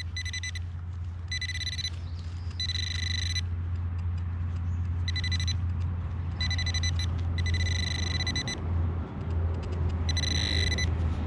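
XP Deus metal detector giving about seven short, high-pitched beeps as the coil passes over a target, signalling a non-ferrous hit that turns out to be a lead bullet. A steady low hum runs underneath.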